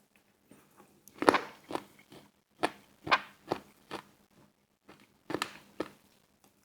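Close-miked eating: crunchy bites and chewing in three short spells, loudest about a second in, with quiet gaps between them.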